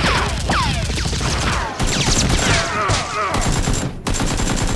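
Rapid bursts of gunfire sound effects laid over a Nerf blaster fight, with several quick falling whistles like bullets whizzing past.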